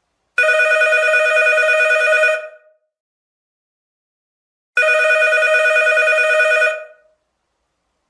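Telephone ringing: two rings of about two seconds each, a little over two seconds apart, each ring a fast trill.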